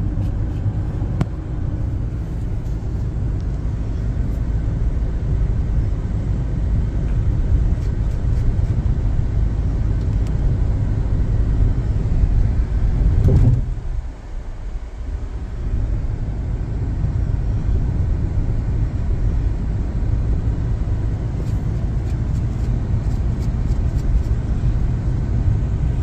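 Steady low rumble of road and wind noise inside a car moving at speed, mostly tyre noise. It swells briefly about halfway through, then drops off for a couple of seconds before settling back.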